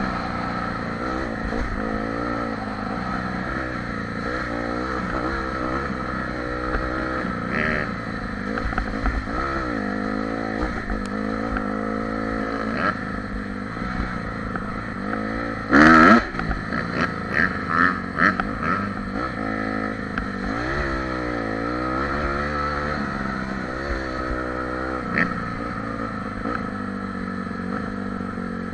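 Engine of a Polaris quad running under way, its pitch rising and falling over and over as the throttle opens and closes. A loud thud about halfway through, followed by a few lighter knocks.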